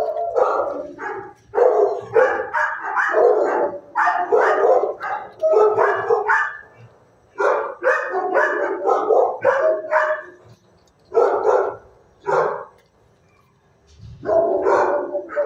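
Dog barking in rapid runs of repeated barks, with short pauses between the runs and a longer lull near the end.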